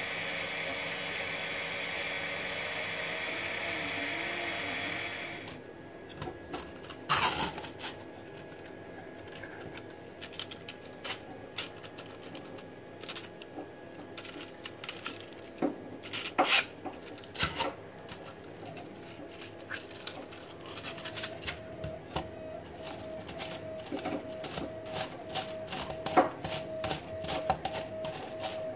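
A 3D printer's stepper motors run with a steady whine and gliding tones while printing. About five seconds in this stops abruptly, and irregular plastic clicking and rattling follow as a 3D-printed plastic roller bearing is turned and handled by hand, with a few louder knocks.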